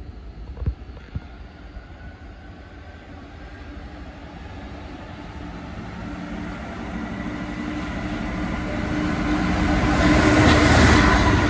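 Class 66 diesel-electric locomotive, with its two-stroke V12 diesel engine, approaching and passing close at the head of a container freight train. It grows steadily louder and is loudest near the end as the locomotive goes by. Two short knocks sound about a second in.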